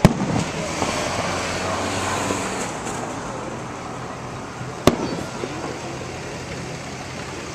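Aerial fireworks bursting overhead: a sharp bang right at the start, a few seconds of noisy crackle, then a second sharp bang about five seconds in.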